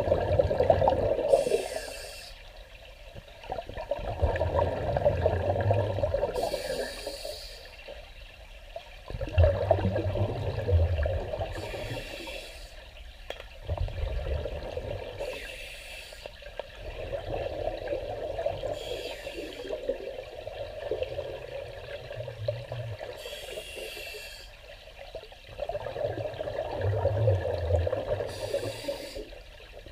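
Scuba regulator breathing underwater: a bubbling rumble on each exhale alternating with a short hiss on each inhale, in a slow cycle about every four to five seconds.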